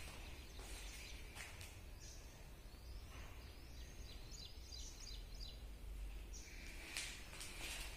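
A bird outside chirps in a quick run of short, high calls for a couple of seconds in the middle, faint over a steady low rumble of room and wind noise. Footsteps scuff on a gritty concrete floor near the start and end.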